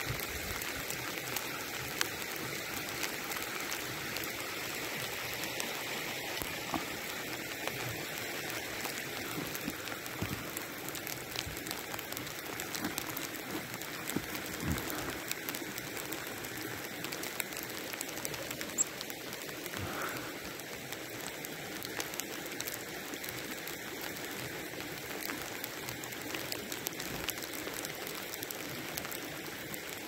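Sleet and light rain falling steadily, with many small scattered ticks of drops.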